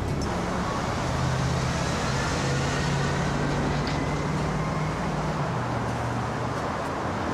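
Steady urban street noise of road traffic, with a low droning tone underneath that shifts pitch every couple of seconds.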